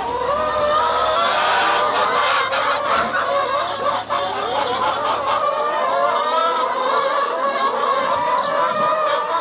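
A flock of brown laying hens clucking and calling over one another at feeding time, a continuous overlapping chorus of squawks and clucks.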